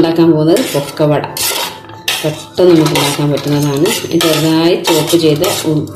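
A ceramic plate scraping and knocking against the rim of a stainless steel bowl as chopped onions are pushed off it by hand. It comes in several scraping strokes with a wavering squeal.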